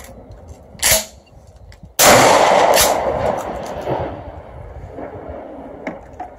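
A 12-gauge pump-action shotgun fires a Remington slug that has soaked in water for 24 hours: one loud shot about two seconds in, echoing and dying away over the next two to three seconds. The soaked round fires normally. A sharp click comes about a second before the shot.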